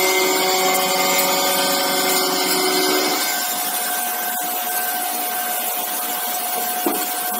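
Vision Wide ASM five-axis machining centre milling the flange face of a cast metal housing: steady metal-cutting noise with a spindle whine. About three seconds in the pitch of the whine changes and the sound settles slightly quieter.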